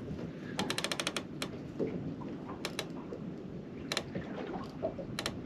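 Fishing reel clicking: a quick run of about eight sharp mechanical clicks about half a second in, then a few single and paired clicks spread through the rest, over a steady low hiss.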